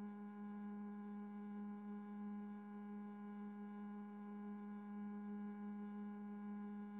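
Steady electronic hum: a constant low tone with fainter higher tones above it, unchanging throughout.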